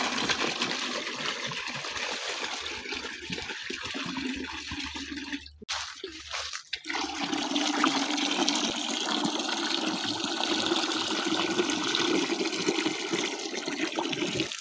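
Water poured from a plastic jerrycan into a plastic bucket that is already partly full, a steady splashing stream. The stream breaks off briefly about halfway through.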